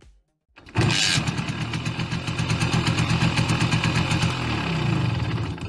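Small two-stroke single-cylinder engine of a Simson moped running steadily, starting about a second in, with a short dip and rise in pitch near the end before it fades out.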